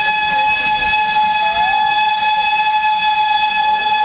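A steam locomotive's whistle blowing one long, steady blast at a single pitch.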